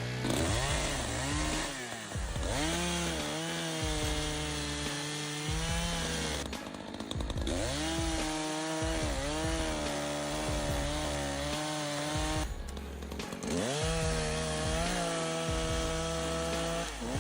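Echo CS-590 Timberwolf two-stroke chainsaw revving up three times. Each time the engine pitch climbs and then holds at full throttle for a few seconds, with short breaks between the runs.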